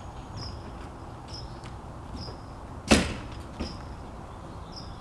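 One loud, sharp bang about three seconds in, followed by a softer knock, over steady low background noise. A short high chirp repeats about once a second throughout.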